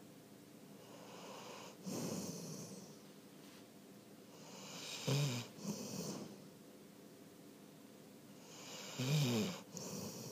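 A golden retriever snoring in slow breaths. A softer breath comes about two seconds in, then louder snores about five and nine seconds in, each followed by a breathy exhale.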